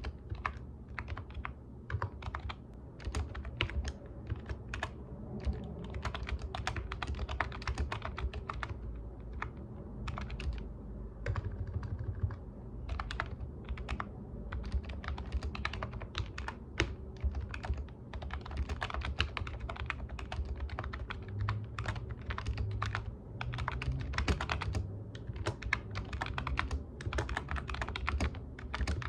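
Computer keyboard being typed on steadily, fast irregular keystrokes in uneven runs with brief pauses between words.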